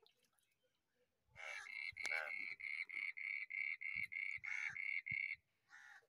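An animal calling: a run of about a dozen short, evenly spaced calls, roughly three a second, starting a little over a second in and stopping shortly before the end.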